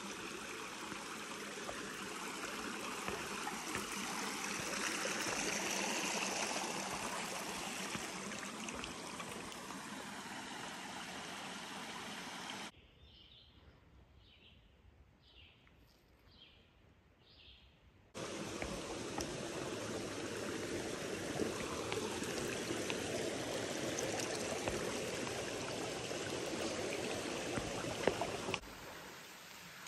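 Creek water rushing over rocks, a steady rush. About thirteen seconds in it gives way for some five seconds to quiet woods with five short high chirps, then the rush returns.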